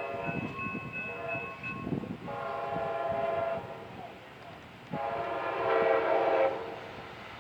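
Siemens Charger locomotive's multi-tone air horn sounding for a grade crossing as the train approaches. A fainter note ends about two seconds in, then come two long held blasts about a second and a half each, with a short gap between them.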